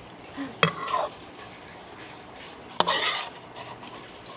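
Someone eating by hand from a plate of fresh fern salad: two sharp clicks about two seconds apart, each followed by a brief crackle.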